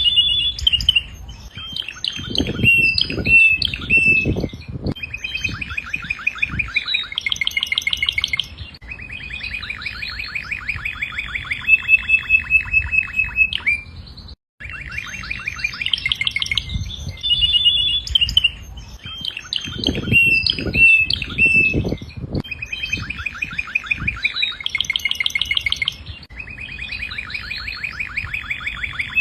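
Domestic canary singing a long, continuous song of rapid trills and rolls mixed with steady whistled notes, broken once by a brief pause about halfway through.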